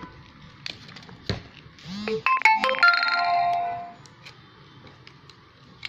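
A short electronic ringtone melody of several clear tones, about two seconds long, starting about two seconds in and the loudest thing heard. Faint clicks and taps of a cardboard pencil box being handled come before it.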